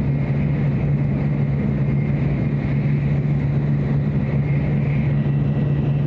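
Steady running noise of a Tokaido Shinkansen at speed, heard inside the passenger car: a constant low hum with a faint high whine over it.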